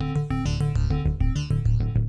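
Background music with a fast, steady beat and quick repeated keyboard notes over a pulsing bass.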